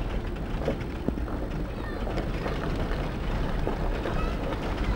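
Four-wheel-drive vehicle driving, a steady engine and road rumble heard from inside the cabin.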